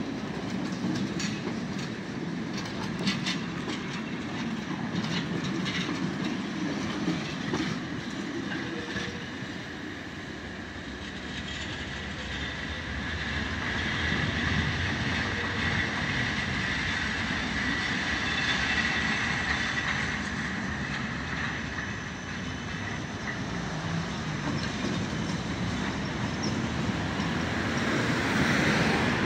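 A tram running on its rails: a steady rumble with sharp clicks over the rail joints in the first few seconds. A high wheel squeal builds around the middle and again near the end.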